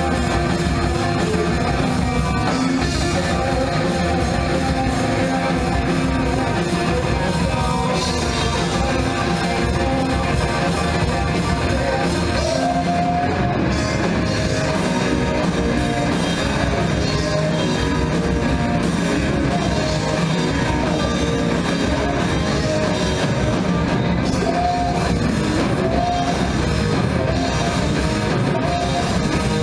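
Three-piece rock band playing live on amplified electric guitar, electric bass and drum kit, loud and continuous.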